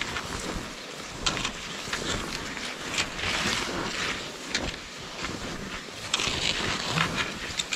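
Skis sliding over snow with ski poles crunching into it, a crisp swish or crunch every half second to a second in an uneven stride rhythm.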